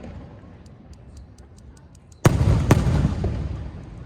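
Aerial fireworks shells bursting: two sharp booms about half a second apart, a little over two seconds in, each trailing off in a long low rumble. Before them there is a quick run of faint crackling ticks.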